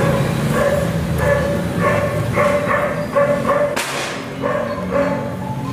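A dog barking repeatedly in short barks, a few a second and unevenly spaced, with one sharp click about four seconds in.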